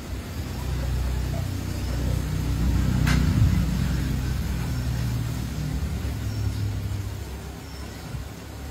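Low rumble of a motor vehicle's engine that grows louder to a peak about three seconds in and then fades away, with one sharp click near the peak.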